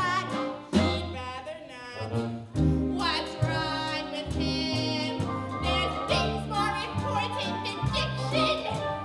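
Live pit band playing a musical-theatre song, with an upright bass playing a steady bass line under a woman singing in a wavering voice.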